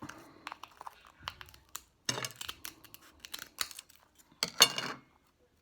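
Scissors working at a closed oyster shell to pry it open: a run of sharp clicks, snips and crackling crunches, the loudest about four and a half seconds in.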